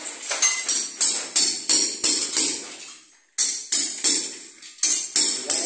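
Background music with a jingling, tambourine-like percussion beat of about two to three strikes a second. It cuts out briefly about three seconds in, then starts again abruptly.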